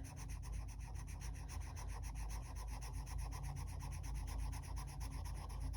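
Coloured pencil shading on paper in quick, even back-and-forth strokes, many a second, as a green Kalour pencil is blended into a leaf.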